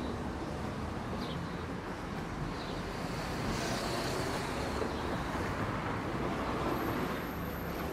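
Steady city street traffic noise: the continuous rumble of cars on an avenue, with a few faint short high chirps.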